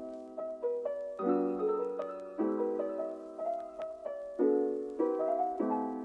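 Background music: a solo piano playing slow chords with single melody notes between them, each note struck and fading away.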